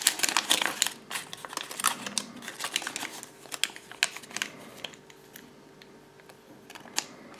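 Thin folded paper leaflets crinkling and crackling as they are unfolded and handled, a dense run of small crackles that thins out after about five seconds.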